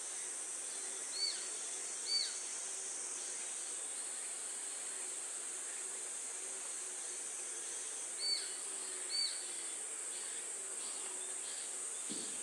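Chinese sparrowhawk calling: short, sharp downslurred notes in two pairs, about six seconds apart, over a steady high insect drone. This is the first of the species' two calls, the one given when a bird is nearby, as opposed to its alarm call.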